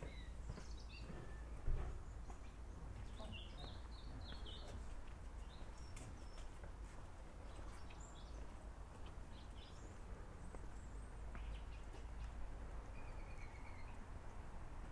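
Quiet footsteps on stone flagstones over a low background rumble, with scattered short high bird chirps and one brief knock about two seconds in.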